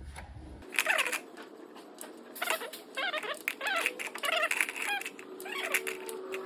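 Pre-mixed 50/50 coolant glugging as it is poured from a jug into the radiator's filler funnel: a run of short, quick gurgles, bunched closer together toward the end.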